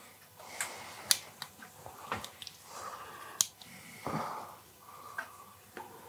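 Scattered sharp clicks and short rustles of hand work on ignition wiring: a flat spade connector being fitted and crimped onto a stripped wire.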